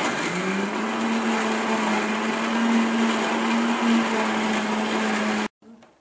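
Electric mixer grinder running with its small steel chutney jar, grinding green herbs and garlic into a wet paste: a steady motor whine that settles just after switch-on, then stops abruptly near the end.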